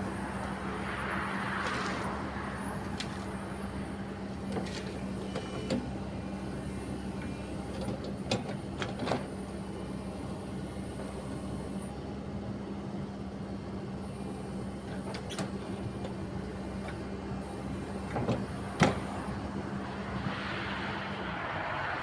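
Kobelco SK140SRLC-3 crawler excavator's diesel engine running at a steady idle, a constant hum with a few sharp clicks and knocks on top. The hum drops away shortly before the end.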